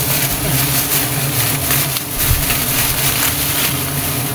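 A swarm of giant honey bees (Apis dorsata) buzzing in a loud, steady drone around their exposed comb, with brief rustling of a plastic sheet wrapped over the comb.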